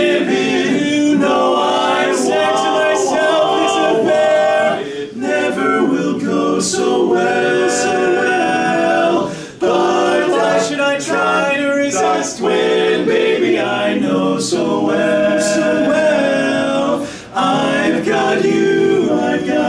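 Male barbershop quartet singing a cappella in four-part harmony, with a few short breaks between phrases.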